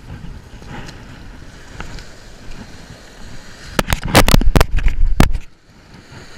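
Low rumble of surf and wind on the microphone, with a cluster of loud knocks and thumps for about a second and a half, starting about four seconds in.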